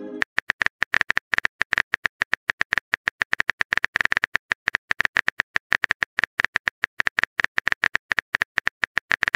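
Phone keyboard typing sound effect: a rapid, slightly uneven run of short clicks, one per letter, as a text message is typed out.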